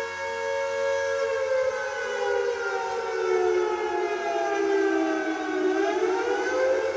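Air raid siren wailing. A held steady tone slides slowly down in pitch from a little over a second in, for about four seconds, then rises back up to the steady tone near the end.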